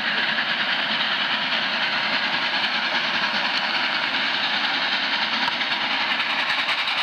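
Passenger train running behind Union Pacific's 4-6-6-4 Challenger steam locomotive 3985, heard from aboard: a steady rushing noise of the cars rolling on the rails, with a faint regular pulse.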